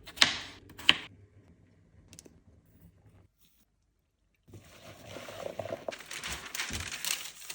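Kitchen food-prep handling sounds: two sharp knocks in the first second, then, after a short silence, a steady rushing hiss with small clatters.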